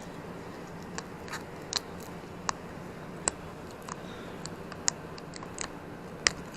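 About ten small, sharp, irregular clicks and ticks of fingers working at a laptop screen panel and its adhesive tape, over a steady low hum.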